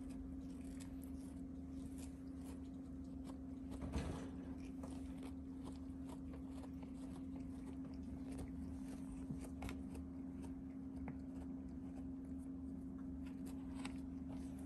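Cat biting and chewing a cloth kicker toy: faint scattered crunching clicks over a steady low hum, with a slightly louder brief rustle about four seconds in.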